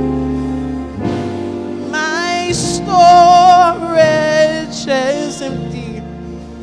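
Female worship leader singing a slow gospel song over held instrumental chords. From about two seconds in, her voice comes in strongly with wide vibrato on sustained notes.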